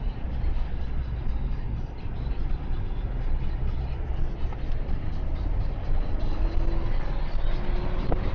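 Steady low engine and tyre rumble heard inside a moving car's cabin.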